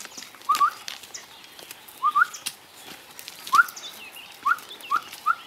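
Short, rising whistle-like animal calls, in pairs about half a second and two seconds in, a single one a little later, then three quicker ones near the end, over faint high chirping and light clicks.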